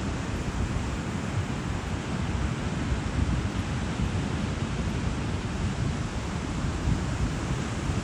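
Wind buffeting the microphone over the steady wash of ocean surf on a beach, with a heavy, fluttering low rumble and no distinct breaking wave.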